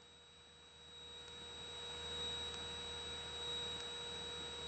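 Faint steady electrical hum with a thin high whine and light hiss, the background noise of the cockpit headset/intercom audio feed. It fades in after about a second of silence.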